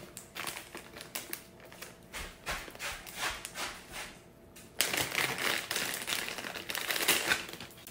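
Light rustling and small clicks of a cloth jewellery pouch and a clear plastic bag being handled, turning to louder, denser plastic crinkling about five seconds in.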